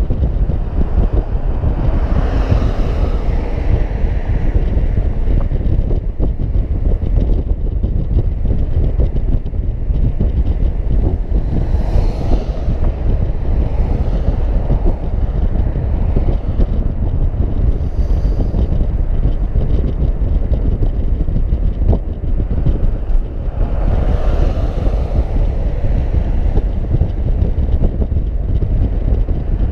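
Heavy wind rumble on the microphone of a moving car, mixed with road noise. Passing traffic swells and fades about four times.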